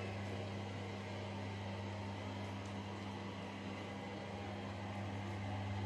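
Steady low mechanical hum with a faint even hiss behind it.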